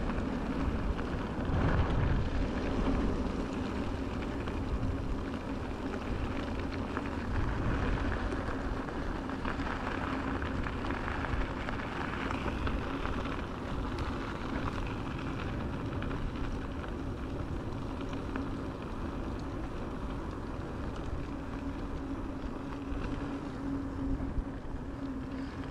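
Electric mountain bike ridden fast on a gravel track: tyres crunching and rattling over the gravel, with wind buffeting the microphone and a steady low hum underneath.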